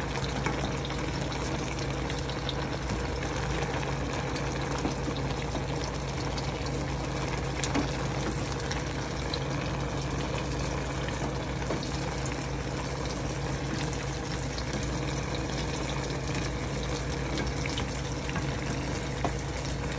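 Pot of vegetable soup boiling on a gas stove: a steady bubbling hiss over a low hum, with a few faint ticks.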